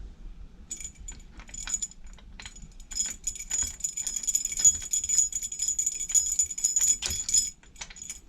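Metal keys jangling and clinking, with small clicks and knocks. The jingling rings most steadily from about three seconds in and stops shortly before the end.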